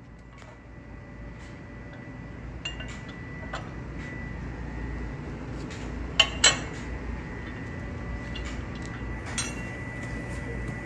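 Hand tools and metal parts clinking at the tractor's rear PTO housing as it is worked on: a few sharp metallic clinks, the loudest a quick pair about six seconds in, over a steady low hum and a faint steady high tone.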